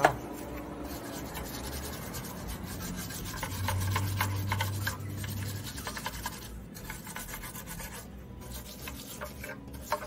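Stiff-bristled brush scrubbing paint-stripper-softened oil gunk off a Suzuki Samurai valve cover in quick, repeated scratchy strokes, with a sharp knock right at the start.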